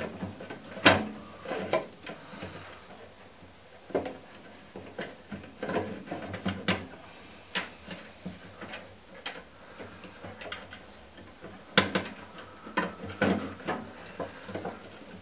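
Replacement PCB and its wiring being pushed back into a gas boiler's control housing by hand: irregular clicks, knocks and rattles, the loudest about a second in and another near twelve seconds.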